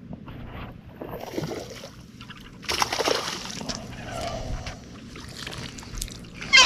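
Water splashing and sloshing at the side of a fishing boat, loudest about three seconds in, with a few light knocks.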